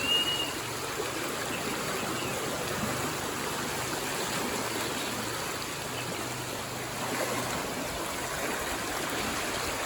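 Swift floodwater rushing over a road, a steady, even rushing noise, with one brief high chirp right at the start.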